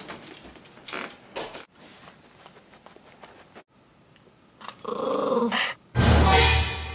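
West Highland white terrier growling, loudest in the last second.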